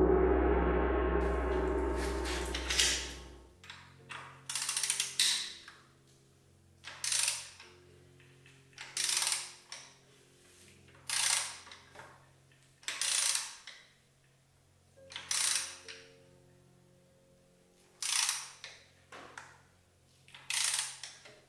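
Hand ratchet wrench clicking in strokes, about eight of them roughly two seconds apart, turning a rebuilt Audi TT Mk3 engine over by hand at the crankshaft. A deep boom fades out at the start, and soft background music plays under it.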